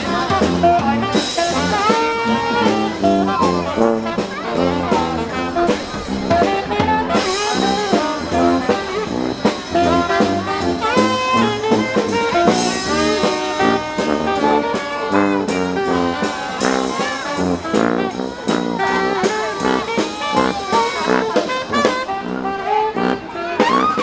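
A brass band playing a tune, with a sousaphone playing a steady, repeating bass line under the melody.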